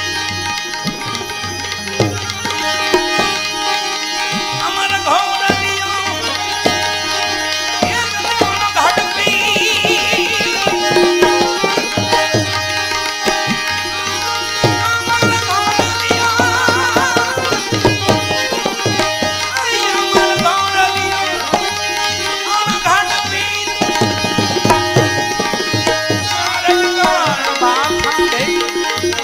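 Instrumental passage of Gujarati devotional bhajan (santvani) music: tabla keeps a steady rhythm under sustained melodic instruments, with a few sliding, ornamented melody phrases over the top.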